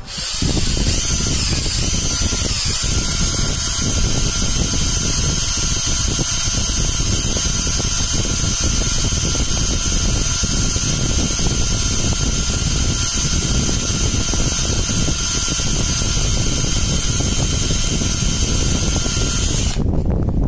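Cordless drill motor running steadily at speed, spinning a metal part clamped in its chuck while it is sanded smooth, a constant whine over a rough hiss; it stops a little before the end.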